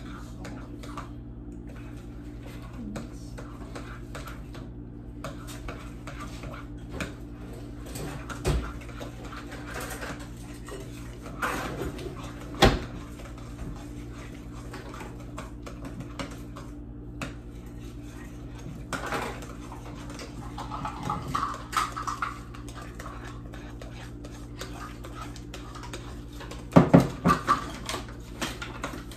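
A mixing utensil clinking and scraping against a glass mixing bowl as eggs are beaten into cookie dough, over a low steady hum. Scattered knocks run through it, the loudest a little under halfway in and a cluster near the end.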